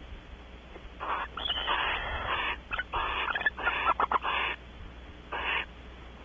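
Barn owls at the nest giving harsh, rasping hiss calls: a dense run of rasps mixed with sharp clicks, then one short rasp near the end.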